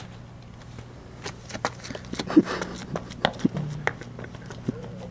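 Running footsteps on asphalt: a string of irregular sharp steps from about a second in, the loudest about halfway through, over a low steady hum.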